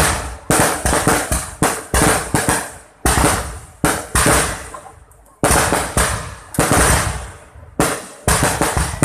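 Aerial firework shells launching and bursting overhead in quick succession: sharp loud bangs, each fading away after it. There is a short lull about five seconds in, then a bang that rings on for a couple of seconds, then a rapid string of bangs near the end.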